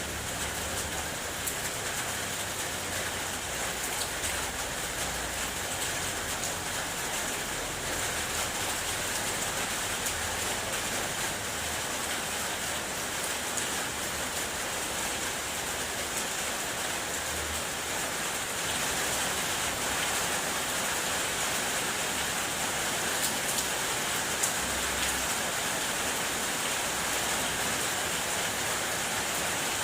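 Steady rain falling on a car, heard from inside it: an even hiss with scattered single drops ticking. It grows a little louder about two-thirds of the way through.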